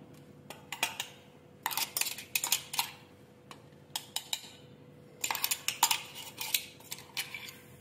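A steel spoon scraping and clinking against the inside of a stainless-steel mixer-grinder jar, emptying out ground peanuts. The scrapes and taps come in two quick bursts, about two seconds in and again about five seconds in.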